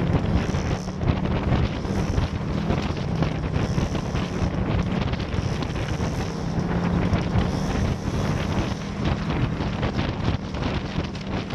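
Wind buffeting the microphone of a camera riding on a moving vehicle: a steady rushing noise, heaviest in the low end, with a faint low hum underneath.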